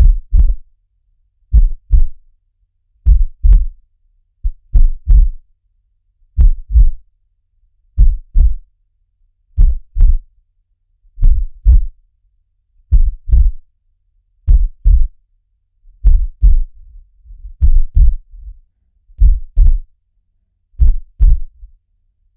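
A heartbeat sound playing on a loop: deep lub-dub double thumps, one pair about every second and a half, fourteen in all. A faint low rumble fills the gaps between beats in the last few seconds.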